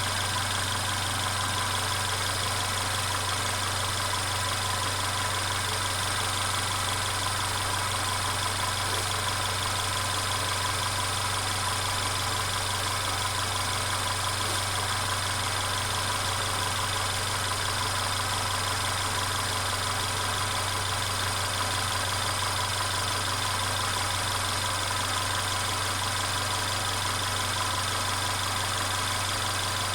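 Mercedes-Benz CLA 250's turbocharged four-cylinder petrol engine idling steadily, with the continuous rattle that the owner reports throughout the recording.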